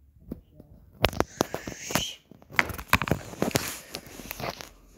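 Handling noise close to the microphone: after about a second of quiet, a busy run of rustles, clicks and knocks.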